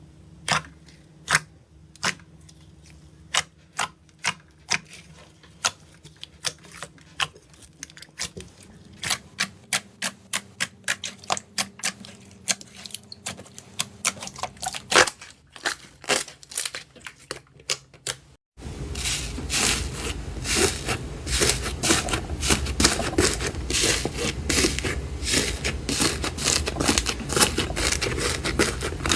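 Slime being pressed and squished, giving sharp sticky pops and clicks, scattered at first, then after an abrupt change about two-thirds through, a dense, louder crackling.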